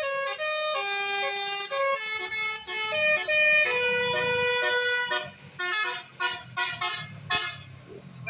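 Bus telolet horn, a multi-trumpet musical air horn, playing a tune in held notes that step up and down. About five seconds in, it switches to a string of short toots over a low engine rumble.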